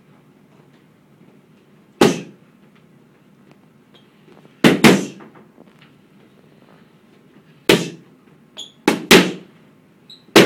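Boxing gloves smacking into focus mitts during padwork, about eight sharp smacks, some single and some in quick combinations of two or three.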